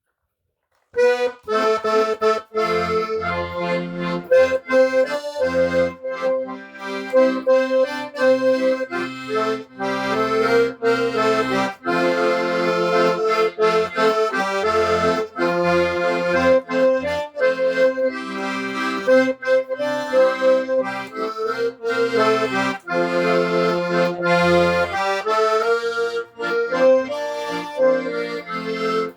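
Accordion playing a tune, a melody over sustained bass notes, starting about a second in.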